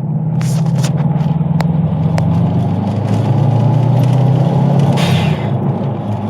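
Subaru STI's turbocharged flat-four engine pulling at part throttle with its exhaust leak repaired, the note building during the first second and holding steady. About five seconds in a short rushing hiss comes and the engine note falls away as the throttle closes.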